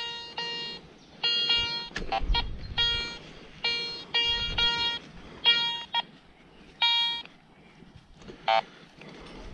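Garrett ACE metal detector beeping over a target, about eight short beeps as the coil is swept back and forth over a dug hole. Two shorter, buzzier tones of a different pitch come in among them.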